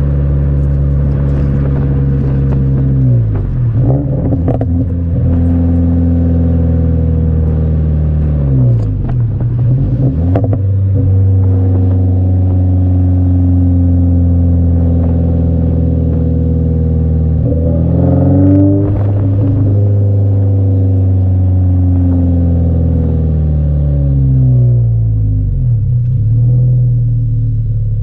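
2022 Subaru BRZ's 2.4-litre flat-four running through a Remark double-wall axleback exhaust while driving, kept under 4,000 rpm. The engine note climbs in pitch as the car pulls, drops suddenly at a couple of upshifts, jumps up once past the middle, then falls away as the car eases off.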